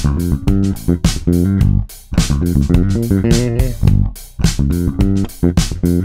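A 2004 Fodera five-string electric bass, alder body with ebony fingerboard, played fingerstyle: a run of short plucked notes, with brief breaks about two seconds and about four seconds in.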